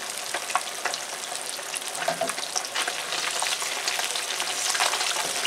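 Breaded flounder fillets sizzling in hot vegetable oil in a pan: a steady hiss dotted with many small pops. Near the end a spatula moves among the fillets.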